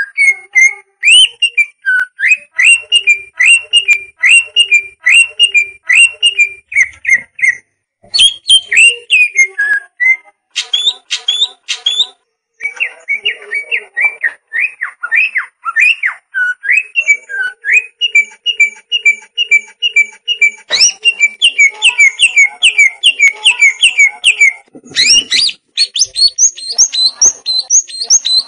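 Green leafbird (cucak ijo) singing: long, fast runs of repeated whistled notes that slide up and down, in phrases broken by brief pauses.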